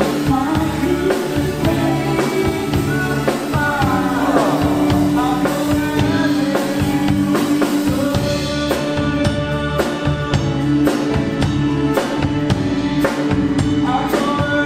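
Live band music: a man and a woman singing into microphones over a drum kit and keyboard, with the drum beat standing out more clearly in the second half.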